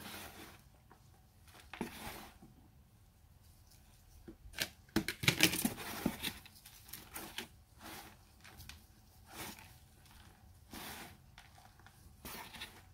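A gloved hand digging and raking through loose flake soil and rotten wood in a plastic rearing box: irregular rustling and scraping, loudest around five to six seconds in.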